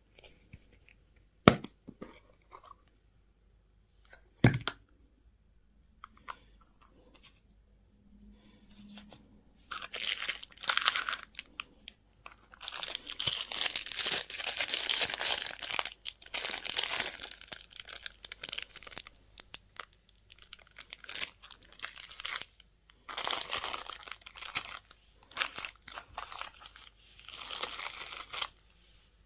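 Plastic candy or toy packaging being crinkled and torn open by hand, in repeated crackling bursts. Two sharp clicks come first, a few seconds apart.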